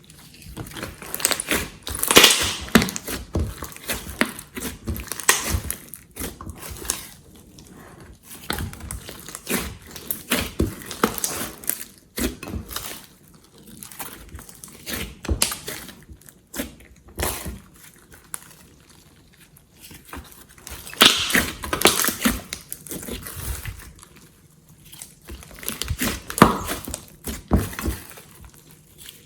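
Glossy slime being squished and kneaded by hand, giving irregular sticky clicks and crackles that come in bursts of a few seconds with quieter pauses between.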